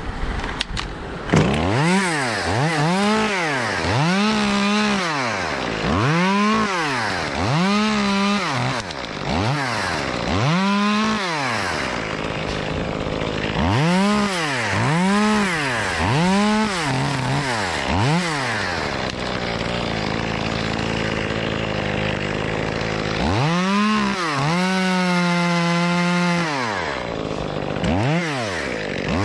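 Echo CS-2511TES top-handle two-stroke chainsaw revved up and down in quick bursts, about one a second, after a sharp knock just over a second in. It drops to a low idle for a few seconds past the middle, then revs again in a few bursts and one longer held rev near the end.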